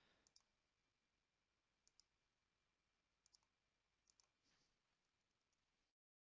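Near silence with a few faint computer mouse clicks, mostly in quick pairs.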